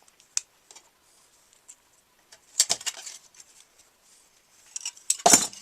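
Metal clicks and clinks from Cleco pliers and a spring-loaded Cleco fastener being handled and pushed into a drilled hole in aluminium sheet. There is a single click just after the start, a short clatter about halfway through, and the loudest clicks near the end.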